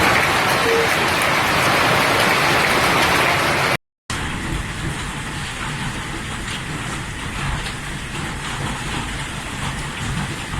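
Heavy hailstorm downpour pelting down as a dense, steady hiss. It breaks off in a brief silence about four seconds in, then carries on more quietly with fine pattering.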